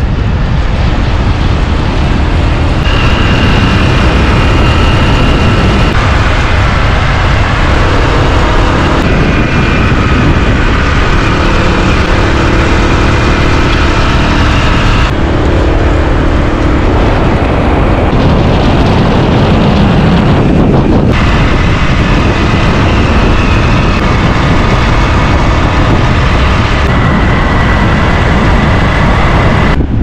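Loud, steady wind rushing and buffeting over the microphone of a camera moving at road-riding speed, with faint whining tones that shift every few seconds.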